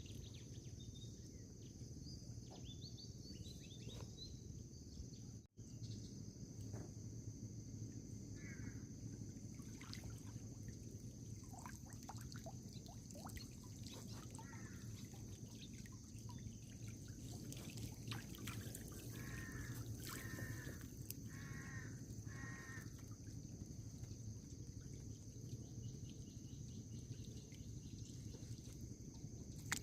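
Faint outdoor riverside ambience: low water and background noise with a steady high-pitched drone, and a handful of short bird chirps through the middle.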